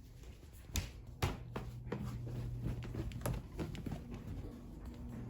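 A few light taps and knocks, with a low steady hum that comes in about a second in; no alarm is sounding.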